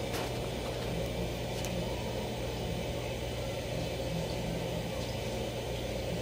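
Steady low hum of an aquarium air pump running a sponge filter, with one brief click just at the start.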